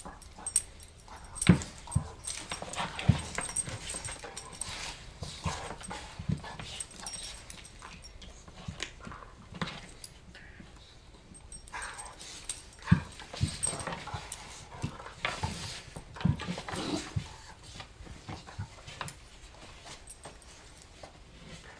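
Two German shorthaired pointers, an adult and a puppy, play-fighting: scuffling and tussling with dog vocalisations and irregular sharp thumps, the loudest about a second and a half in and again about thirteen seconds in.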